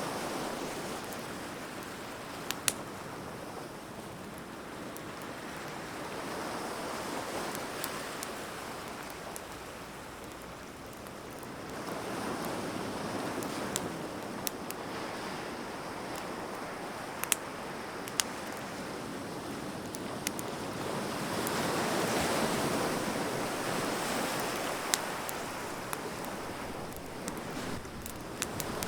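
Wood bonfire crackling, with sharp pops every few seconds, over the rush of surf that swells and fades in slow waves.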